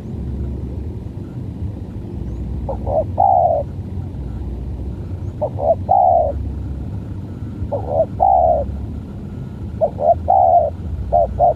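Spotted doves (tekukur) cooing: repeated phrases of two quick short notes and a longer note, about every two and a half seconds, over a steady low rumble.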